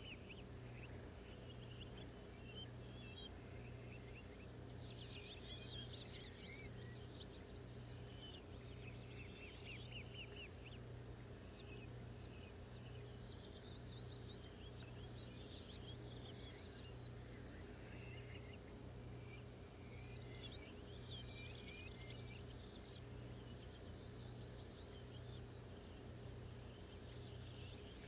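Faint crinkling and rustling of paper cards and vinyl lettering being handled, in scattered short bouts over a steady low hum.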